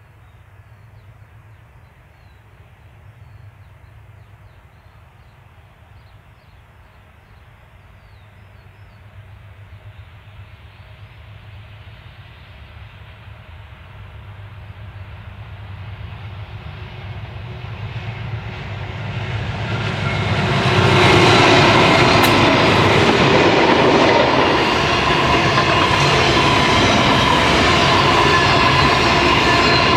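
Diesel-electric freight train approaching, growing steadily louder over about twenty seconds. The locomotives pass close by about two-thirds of the way in, followed by the steady, loud run of freight wagons rolling past on the rails.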